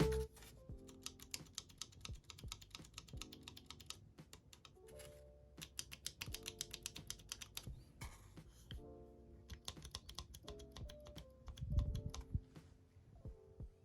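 Typing on a mechanical keyboard: runs of quick key clacks with short pauses between them, over soft background music.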